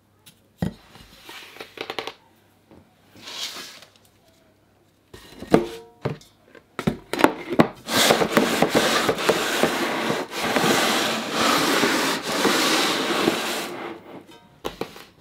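Plates and covers handled on a tabletop, with scattered clicks and knocks. About eight seconds in, loud background music starts and plays for about six seconds.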